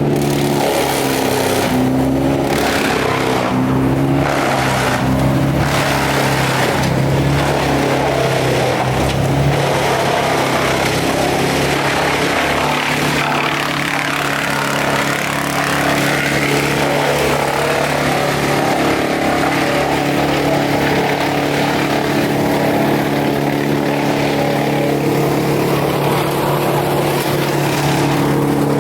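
A large engine running steadily at a constant speed, with rough mechanical noise over it.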